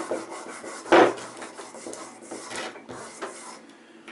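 Back-and-forth rubbing strokes of a kitchen knife being honed by hand on the guided bar of a homemade angle-guided sharpening jig, with one sharp knock about a second in.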